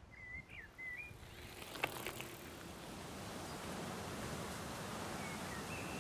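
Outdoor park ambience: a steady background rush that grows slightly louder, with a few short bird chirps in the first second and a couple of sharp clicks about two seconds in.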